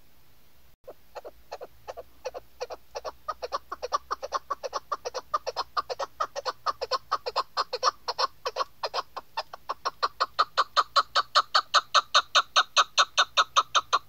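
Caged chukar partridge calling: a run of short clucking chuk notes that starts sparse about a second in, then quickens and grows louder into a steady fast series of about four to five notes a second.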